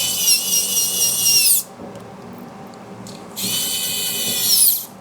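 Small electric screwdriver motor running twice, each about a second and a half, driving screws into a 3D printer's back plate. It makes a high whine that drops in pitch as the motor stops.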